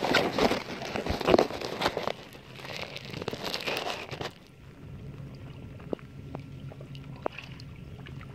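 Water sloshing and gurgling against a kayak's plastic hull, mixed with knocks and rubbing, busy for about the first four seconds, then quieter lapping with a few light clicks.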